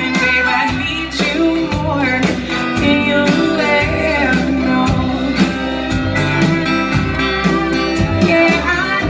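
Live band playing a slow, soulful song: drum kit with a steady beat, bass, guitar and violin, with a woman singing lead.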